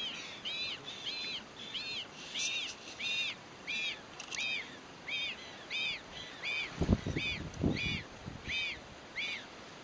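Magellanic penguin chick peeping: a high call repeated evenly about twice a second, each note rising and falling. A few low thumps and rustles come about seven seconds in.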